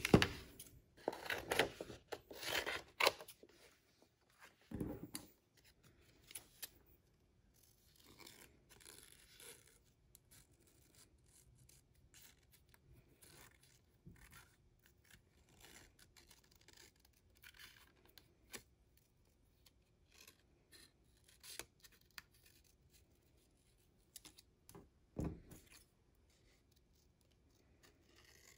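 Scissors making short, irregular snips through thin magazine paper, cutting out small scalloped shapes. Paper rustles heavily for the first few seconds, and there are two dull thumps, about five seconds in and near the end.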